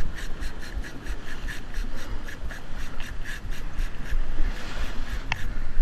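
A large spinning reel being cranked fast, a rhythmic rasping about three times a second, over low wind rumble on the microphone. One sharp click comes near the end.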